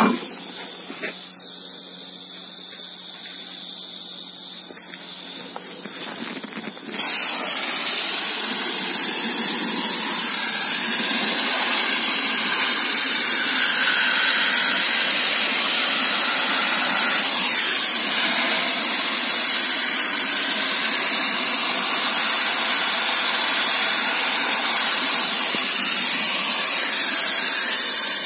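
Sandblasting gun blasting abrasive with compressed air from a 50-litre air compressor, a loud steady hiss that starts suddenly about seven seconds in. Before it comes a quieter stretch with a high steady whine.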